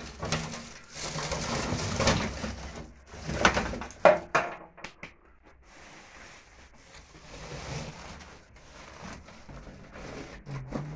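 Dry brush and twigs rustling and crackling as they are pushed by hand into the top opening of a wood stove, with two sharp knocks about three and a half and four seconds in. The sound dies down after about five seconds.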